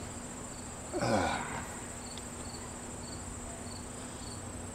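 Insects calling steadily: a continuous high trill with a short, higher chirp repeating about twice a second. About a second in, a man lets out a brief grunt that falls in pitch.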